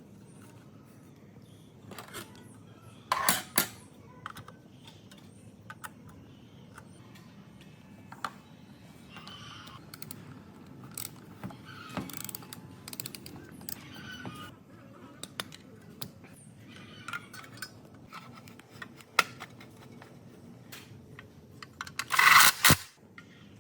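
Metal tools and small engine parts clinking and knocking as they are handled, in scattered irregular clicks with a louder clatter about three seconds in and another near the end.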